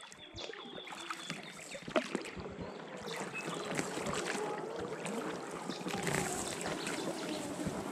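Oars dipping and splashing as a small boat is rowed, with water sloshing along the hull. There is a sharper knock about two seconds in.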